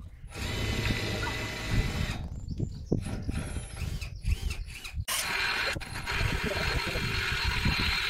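Cordless drill boring bolt holes through a steel RSJ beam. It runs in spells: a steady run in the first two seconds, a more broken stretch in the middle, and a long steady run over the last three seconds that cuts off suddenly.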